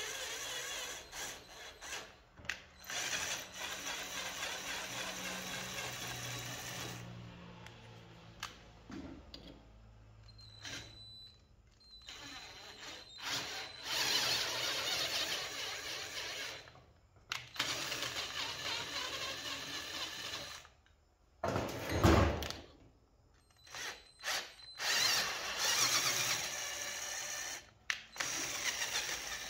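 Cordless drill boring holes through a steel tube, run in bursts with short pauses between them. There is a single loud knock about two-thirds of the way through.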